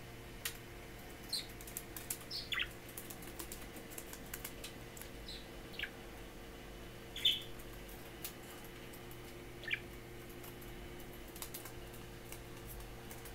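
Young budgerigar giving about seven short chirps, each a quick downward sweep, spread unevenly over the stretch, with light ticks and taps as it moves about on a desk and a paper booklet.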